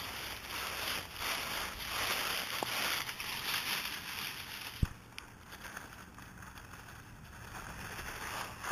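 Dry fallen leaves crunching and rustling as Yorkshire terrier puppies scramble and tussle through them, with one sharp knock about five seconds in, after which the rustling is quieter.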